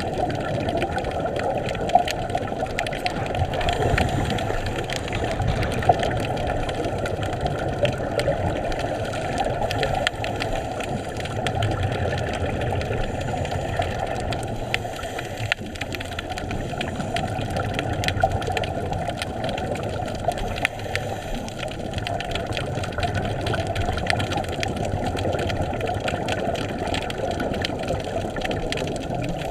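Muffled underwater ambience heard through a GoPro's waterproof housing: a steady low rumble with many scattered faint clicks and crackles.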